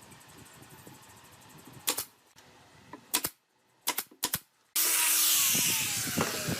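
A few sharp knocks, single and then in a quick run of three, then a loud rushing noise starts suddenly near the end, with a tone that slides down through it.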